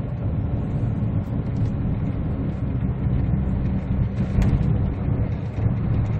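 A Kia Ray cruising on the road, heard from inside the cabin: a steady low rumble of engine and road noise. There is a single short click about four and a half seconds in.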